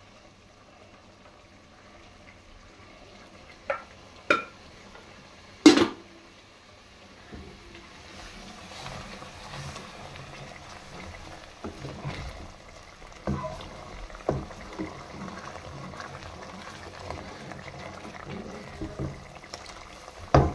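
A few sharp knocks in the first six seconds, the loudest about six seconds in. Then the yogurt and gram-flour kadhi mixture sizzles and bubbles in a metal pan of fried masala while a wooden spoon stirs it, with occasional knocks and scrapes.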